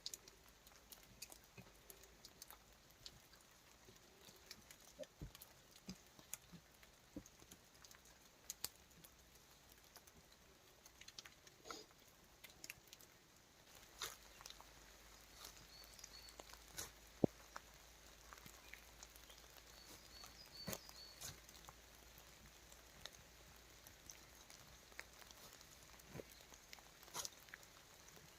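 Faint, irregular patter of raindrops and drips falling in the forest, with scattered sharper ticks and one louder click about seventeen seconds in.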